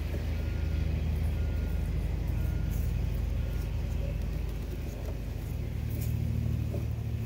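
A vehicle engine idling, a steady low hum. Faint short beeps sound about once a second during the first few seconds, with a few light ticks.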